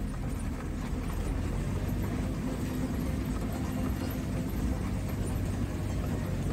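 Maruti Suzuki Gypsy 4x4 driving along, a steady low engine drone with road rumble that holds an even pitch throughout.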